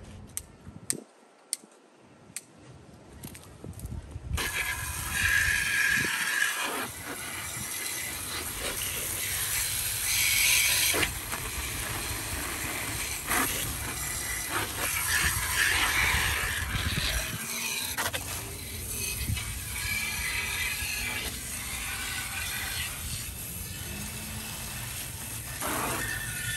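A few sharp clicks, then from about four seconds in, continuous rapid scrubbing and scraping on the paint-stripped metal fan parts as loosened paint is worked off.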